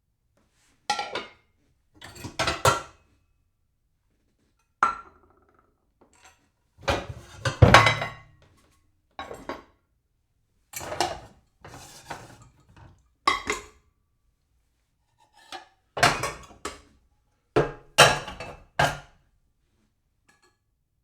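Dishes being shuffled and stacked: bursts of clattering and clinking that come in clusters with short silent pauses between them, the loudest clatter about eight seconds in.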